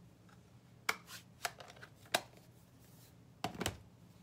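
Stamping and card-making supplies being handled and set down on a desk: a handful of short, sharp clicks and clacks. The loudest comes about two seconds in, and a quick double clack comes near the end.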